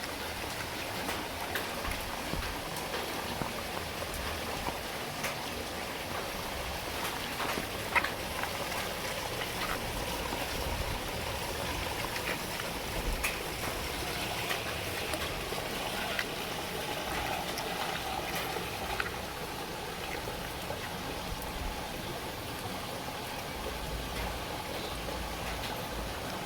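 Heavy rain falling steadily, with scattered sharper drops tapping on nearby surfaces and one louder tap about eight seconds in.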